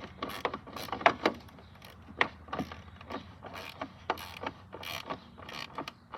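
Small hand ratchet clicking in quick, uneven runs as it drives in the screws that hold the headlight assembly.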